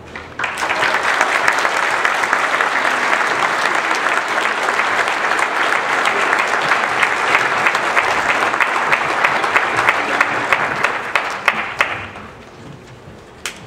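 Audience applauding, dying away about twelve seconds in, with a few last scattered claps near the end.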